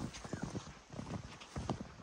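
Footsteps crunching through snow: a faint, quick, irregular run of short soft crunches, several a second.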